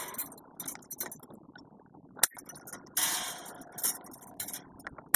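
Light metallic clinks and scrapes of taut fence wire and steel fencing tools being handled, with one sharp click a little over two seconds in and a longer scrape at about three seconds.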